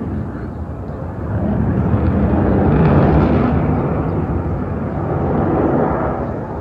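Jet fighters flying past overhead: jet engine noise that swells about a second in, is loudest around the middle and fades near the end.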